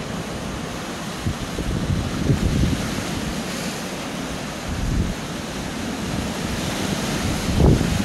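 Sea waves breaking and washing over rocks, a steady rush that swells louder a couple of times, with wind buffeting the microphone.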